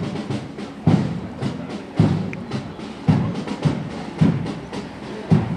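Marching drum beat: a bass drum striking steadily about twice a second, every other beat louder, keeping step for a marching column, with lighter taps in between.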